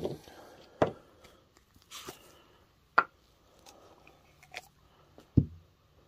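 A few sharp knocks and clicks as tubes and parts are picked up and set down on a wooden workbench. There is a short rustle about two seconds in and a heavier thump near the end.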